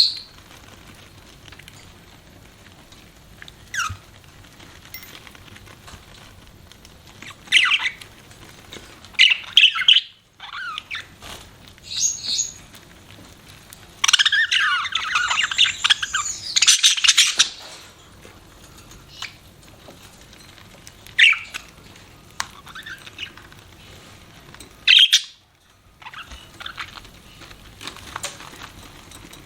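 Budgerigars chirping in short, scattered calls, with a longer stretch of busy chattering warble about halfway through.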